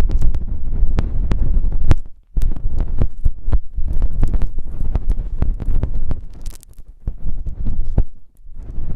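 Close-up ASMR ear massage sounds: hands rubbing and scratching directly on an ear-shaped microphone, giving a loud muffled rumble full of crackles and clicks. The rubbing breaks off briefly twice.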